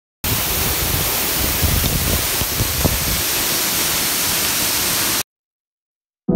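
A steady rush of falling water, starting and cutting off abruptly.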